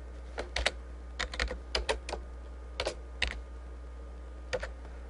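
Computer keyboard being typed on: separate key clicks in short irregular runs of two to four strokes with brief pauses between, over a faint steady low hum.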